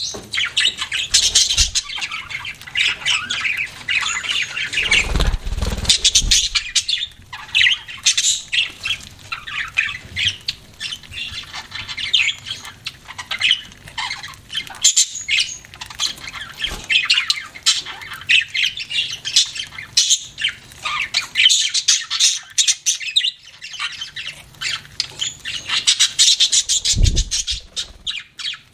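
Budgerigars chattering continuously in rapid, short, high-pitched notes. Two brief low thumps, about five seconds in and near the end.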